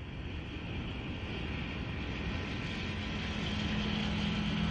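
Mack semi-truck running along the road, a steady engine-and-road rumble that grows louder, with a steady low drone joining about two to three seconds in.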